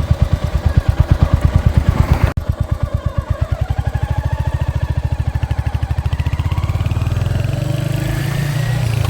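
Royal Enfield Hunter 350's single-cylinder 349 cc engine, heard through its exhaust. It thumps at low revs for about two seconds. Then its beat quickens and the note rises steadily as the bike accelerates.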